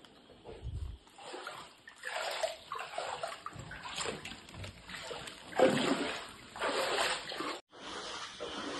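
Feet wading through floodwater covering a house floor: a run of irregular splashes and sloshes, loudest about two-thirds of the way through, cut off abruptly near the end.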